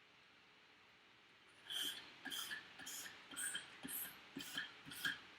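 A sharpening hone on a KME guided sharpener stroked along a Victorinox Huntsman pocketknife blade: short scraping strokes, about two a second, starting after a second and a half of quiet, working the edge on a grit coarser than 600.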